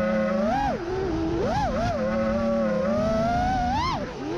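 FPV freestyle quadcopter's electric motors and propellers whining, the pitch swinging up and down as the throttle changes. Near the end the pitch climbs sharply, then drops away briefly with a dip in level.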